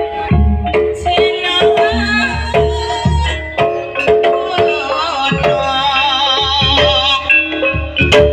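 Live ebeg accompaniment playing a sampak: regular low drum strokes about once a second with repeated mallet-struck pitched notes, and a wavering high melody coming in over them in the middle.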